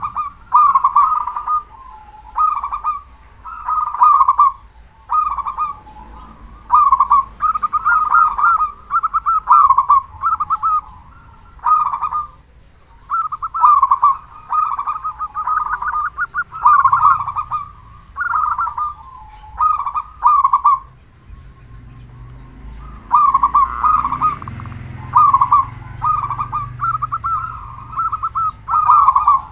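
Zebra dove (perkutut) cooing over and over, loud rolling, trilled coo phrases about once a second, with a short pause about two-thirds of the way through.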